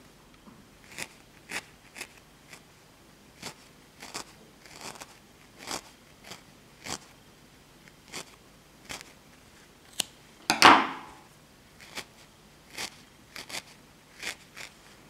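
A barbed felting needle jabbing into a ball of wool roving, a dry crunch with each stab at an irregular pace of about one to two a second. One louder, longer rustle of the wool being handled comes about two-thirds through.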